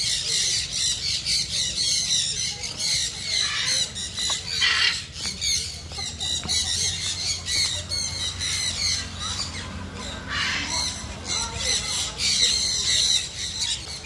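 Many aviary birds chirping and squawking at once, a constant overlapping chorus of short high-pitched calls.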